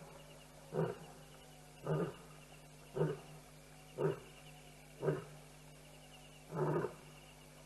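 Lion roaring off-camera: a run of short, deep grunts, about one a second, with one slightly longer grunt near the end. This is the grunting series that closes a lion's roaring bout.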